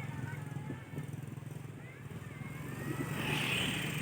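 Tour bus diesel engine running at idle, a steady low rumble, with faint voices in the background and a short hiss about three seconds in.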